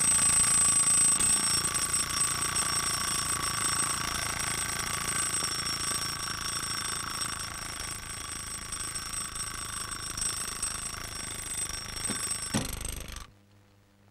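Small travel alarm clock ringing steadily and high-pitched. Near the end there are a click or two and the ringing stops suddenly as a hand shuts it off.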